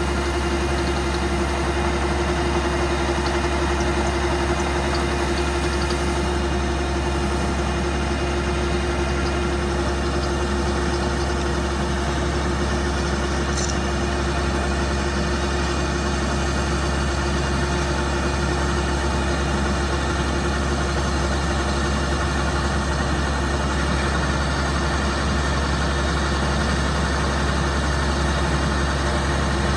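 Combine harvester running steadily: an even engine drone with a constant hum that does not change.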